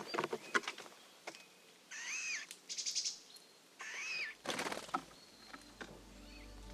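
Wild birds calling: two arched, rising-then-falling whistled calls about two seconds apart with a quick dry rattle between them, plus a few short rustling bursts. Soft music begins fading in near the end.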